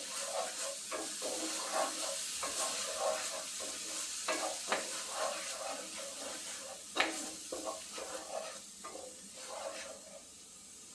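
Spice paste sizzling in hot olive oil in a skillet as it is stir-fried, with the scrape and tap of a utensil against the pan, one sharp knock about seven seconds in. The sizzle fades toward the end.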